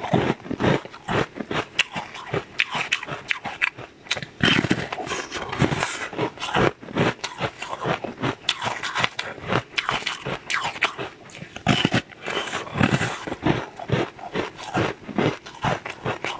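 Close-up biting and chewing of a hard pink flower-shaped treat: a dense run of crisp crunches and crackles, with louder bites now and then.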